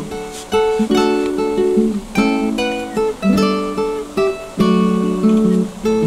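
Music: a plucked acoustic guitar playing a melody of ringing notes, each struck and left to fade.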